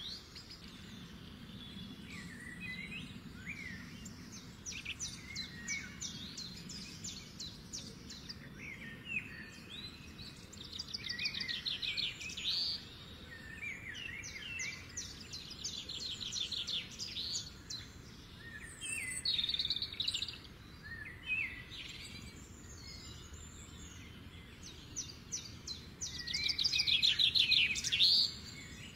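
Birds singing: bouts of rapid trills and short chirps, with the loudest trill near the end.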